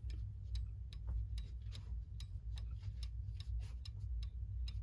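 Hermle mechanical clock movement ticking with its pendulum swinging, sharp ticks about twice a second over a steady low hum. The beat is still slightly uneven: the movement is not yet quite in beat after the anchor was nudged.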